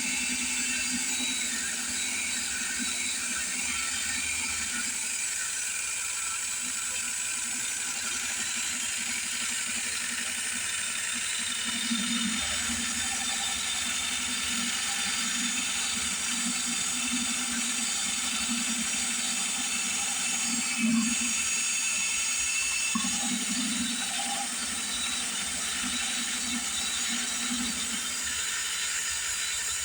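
Cheap cordless drill driving a DIY micro metal lathe, the drill's motor and gearbox running steadily with a high whine and a wavering low hum.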